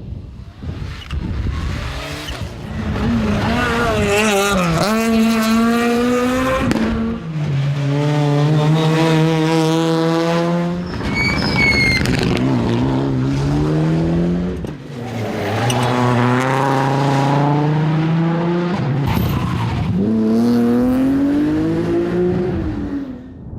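Rally cars at full throttle on a special stage: several runs of engines revving up, holding high revs and changing gear, each one breaking off and another starting. A brief high squeal, typical of tyres, comes about halfway through.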